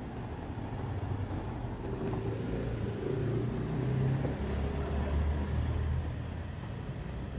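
A motor vehicle's engine running, a low rumble that swells louder about two seconds in and eases off near the end, as if passing.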